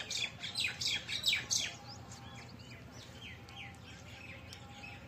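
Small birds chirping: a quick run of rapid, falling chirps in the first two seconds, then fainter scattered chirps.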